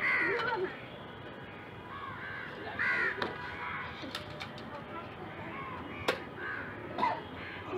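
Crows cawing repeatedly in harsh calls, loudest at the start and again about three seconds in. A single sharp click comes about six seconds in.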